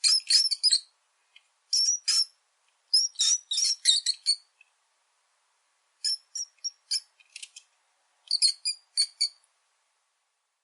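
Mouse squeaking: quick, high-pitched squeaks in five clusters of several each, with short silent pauses between the clusters.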